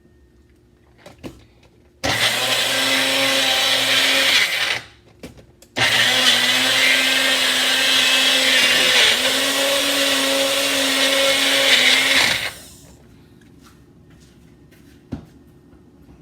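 Electric blender running in two bursts, about two and a half seconds and then about seven seconds, chopping garlic cloves with a little apple cider added. A few small clicks come before, between and after the runs.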